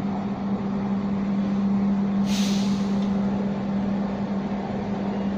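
Running noise of the KA Sancaka executive-class passenger train heard from on board: a steady rumble with a constant hum, and a short hiss lasting about half a second a little over two seconds in.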